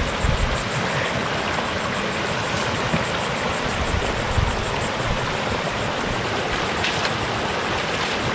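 Creek water rushing steadily as it gushes over a small dam.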